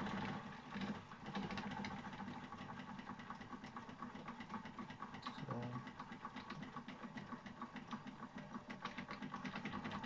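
Wilesco toy steam engine running, its small cylinder and linkage giving a fast, even mechanical clatter.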